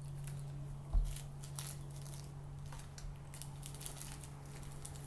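Light clicking and rustling of small glitter containers being handled and sorted on a table, with a soft thump about a second in, over a steady low hum.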